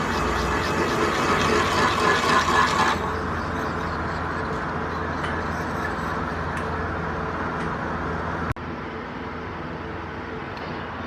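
Metal-turning lathe running, with the cutting tool hissing loudly against the metal for about three seconds before the cut stops and only the machine's steady hum is left. There is one sharp click about eight and a half seconds in.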